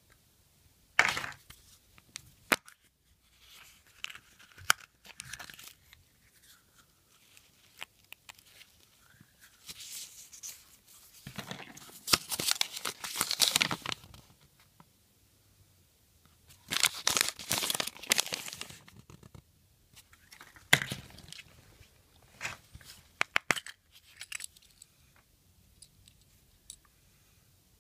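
Paper crinkling in irregular bursts as Kinder Surprise toy leaflets and wrapping are unfolded by hand, with two longer bursts in the middle, and scattered small sharp clicks between them.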